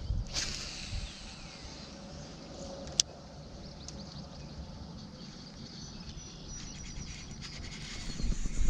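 Wind rumbling on the microphone over open water, with a faint steady hiss. A single sharp click comes about three seconds in, and the rumble swells into a louder gust near the end.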